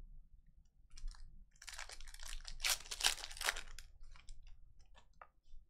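Crinkling, crackly rustle of a trading-card pack being opened and its cards handled, loudest in the middle, with scattered light clicks of card edges toward the end.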